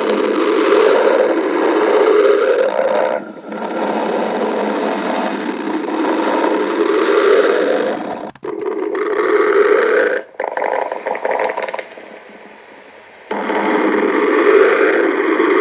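Stomach growling: long, loud rumbling growls one after another, broken by short gaps, with a quieter stretch shortly before the end before another growl.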